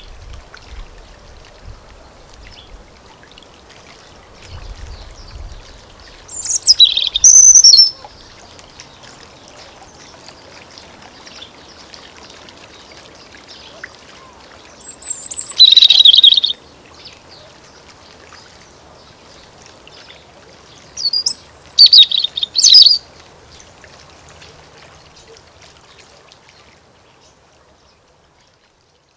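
European robin singing: three short, high phrases of song, each a second or two long and several seconds apart.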